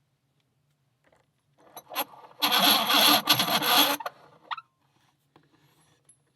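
Rummaging among metal locks and tools: a few clicks, then about a second and a half of loud rattling and rubbing, and a last click shortly after.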